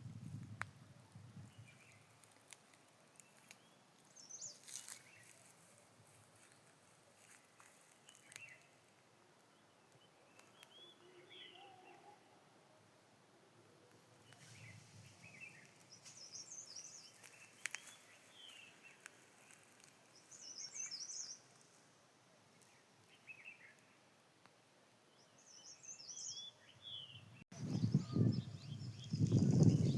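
Small birds chirping in short, scattered calls over a faint outdoor background. About two seconds from the end a loud low rumble starts.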